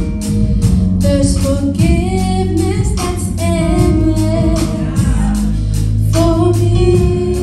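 Choir of women and girls singing together, with accompaniment keeping a steady beat.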